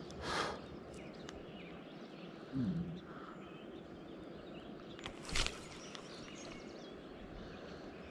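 Steady rushing of river water with faint bird chirps. Two brief sharp noises, about half a second in and near the middle, and a short low falling sound a little before them.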